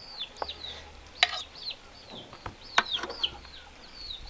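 A bird chirping over and over, short high calls that fall in pitch, two or three a second. A fork clinks twice against a metal cooking pot while steamed vegetables are lifted out.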